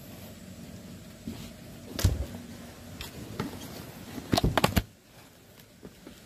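A few sharp knocks and bumps from handling gear and moving about: one about two seconds in, then a quick run of four or five near the end, over a low steady background.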